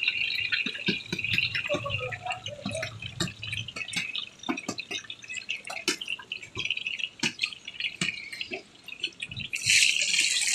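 Hot oil in a large wok crackling with scattered pops and clicks, then near the end a loud sizzle starts as batter-coated chicken goes into the oil to deep-fry.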